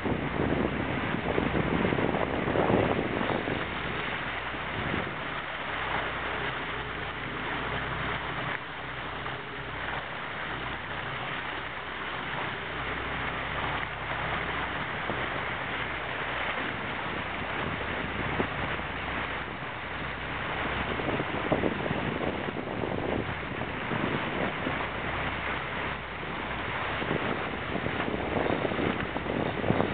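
Wind buffeting the microphone over choppy water splashing around a boat under way, with a low, steady engine hum underneath.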